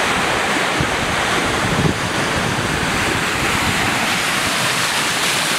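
Flash flood of muddy water laden with hail slush rushing down a canyon wash: a loud, steady rush of turbulent water.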